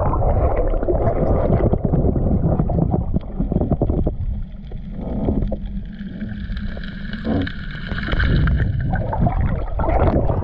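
Water sloshing and gurgling around an action camera as it goes under with a snorkeler. The sound is a muffled, rumbling wash that turns quieter while the camera is fully submerged, with a faint high whine in the middle.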